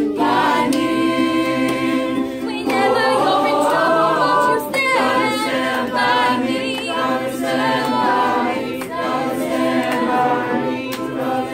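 High school choir singing, a female soloist out in front carrying the melody over the group's sustained backing chords.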